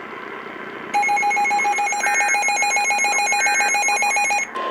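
Electronic emergency-alert tones: a rapidly pulsing, buzzing alarm tone, with two short two-pitch data bursts of the EAS end-of-message code about a second and a half apart. Near the end the alarm stops and a steady single tone begins.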